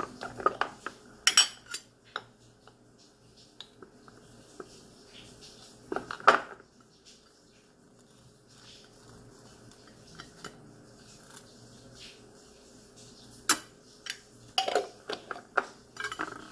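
A metal spoon clinking and scraping against a glass jar of cream cheese and a plate, in short clusters of clicks near the start, around six seconds in and near the end, with quiet between.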